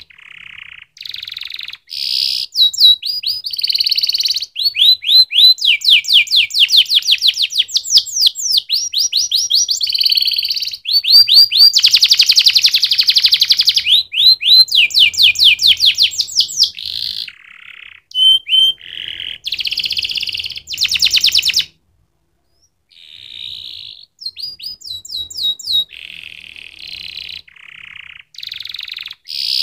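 Domestic canary singing: a long song of rapid repeated trills and rolls, high-pitched, with a silent break of about a second about two-thirds of the way through.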